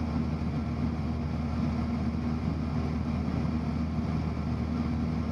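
Cessna 172's piston engine and propeller droning steadily in flight, heard inside the cockpit.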